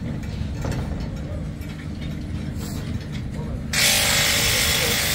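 Mechanical noise from a fairground ride being dismantled: a steady low hum, with a louder, even rushing noise that starts abruptly about three and a half seconds in.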